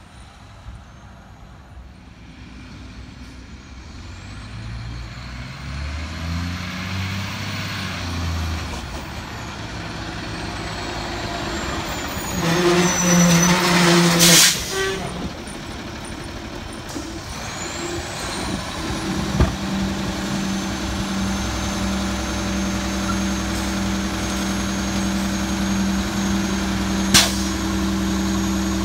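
A Bridgeport side-loading garbage truck drives up, its diesel engine growing louder and changing pitch as it comes. It pulls up with a sharp hiss of air brakes about halfway through, then idles steadily, with a couple of short sharp knocks near the end.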